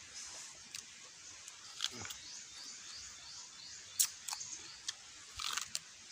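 Mouth sounds of eating small raw green catmon fruits dipped in chili salt: a few sharp crunches and wet clicks as the fruit is bitten and chewed, including a cluster near the end. Faint high chirps repeat about three times a second through the middle.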